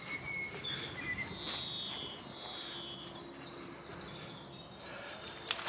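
Small birds chirping and singing: quick, high chirps with one longer falling whistle about a second in. A faint steady low hum sits underneath in the second half.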